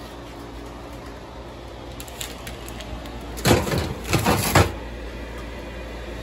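Metal baking sheet scraping and clattering against the wire oven rack as it is slid into the oven, a couple of loud rasping strokes about three and a half seconds in, over a steady low hum.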